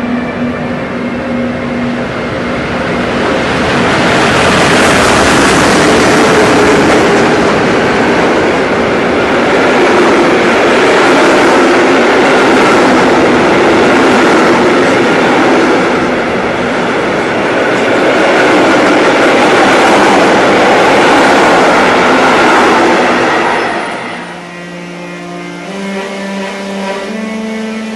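Freight train passing close by at speed: a loud, steady rush of wheels on rail and air. Near the end it stops abruptly and music with held, stepped notes takes over.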